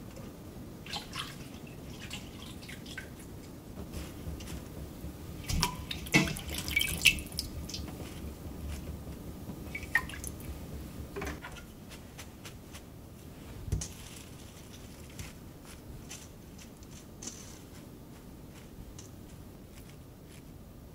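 Water dripping and trickling in a stainless steel kitchen sink as freshly washed microgreens are drained in a mesh strainer, with scattered light clicks and knocks of handling. A denser run of clicks and splashes comes about six to seven seconds in.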